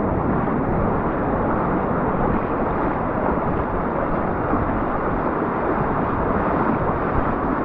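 Ocean surf washing through the shallows, mixed with wind buffeting the microphone: a steady rushing noise.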